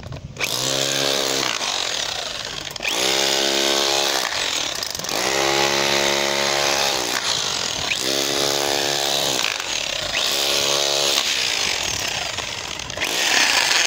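DeWalt SDS Plus hammer drill with a chisel bit hammering into broken concrete and rubble. It runs in about five bursts, the motor pitch rising at the start of each and easing off between them, over a steady rattle of the chisel on the stone.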